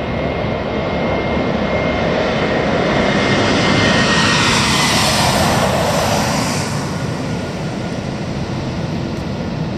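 Large jet airliner passing low overhead: its engines' rushing noise swells to a peak about four seconds in and then eases off, with a high whine that drops in pitch as the plane goes by.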